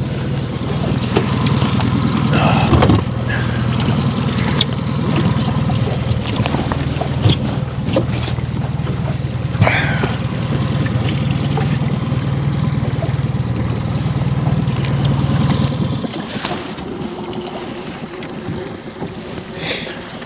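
Boat motor running steadily at trolling speed with a low drone that drops away about 16 seconds in. A few short knocks sound over it.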